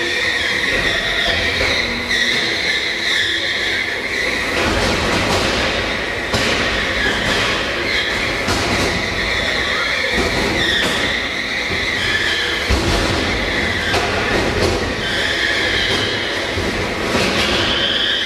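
Heavyweight combat robots' electric drive motors whining, rising and falling as the robots shove against each other, with a few sharp knocks of contact.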